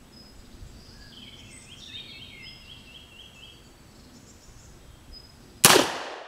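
A single shot from a Smith & Wesson Model 1917 revolver firing a .45 ACP 230-grain full-metal-jacket round, a sharp report about five and a half seconds in, with a short echo dying away.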